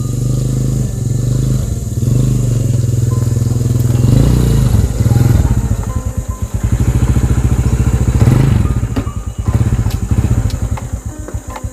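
Small underbone motorcycle engine running close by as the bike rides up, the engine note rising twice under throttle. Near the end it slows to a lumpy idle, its firing pulses heard as separate beats.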